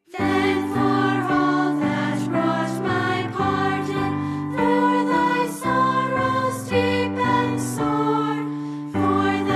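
A slow hymn sung with accompaniment. A new stanza starts just after a brief break, and there is a short pause between lines about nine seconds in.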